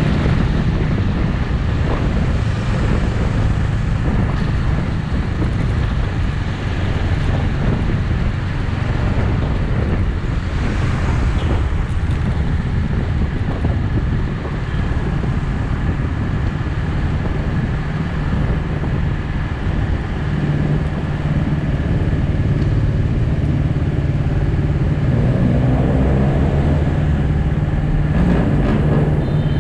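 Bristol 250 Classic motorcycle engine running steadily under way, with road and wind noise on the microphone. Near the end the engine note glides in pitch as the bike slows up behind a car.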